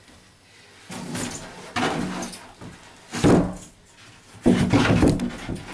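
Marine-grade plywood bulkhead bumping and scraping against the boat hull and plywood stringers as it is lowered and fitted into place. Three bouts of wood knocking and rubbing, the sharpest about three seconds in.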